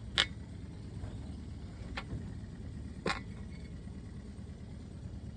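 Three sharp knocks over a steady low rumble. The first, about a quarter second in, is the loudest; the other two come about two and three seconds in.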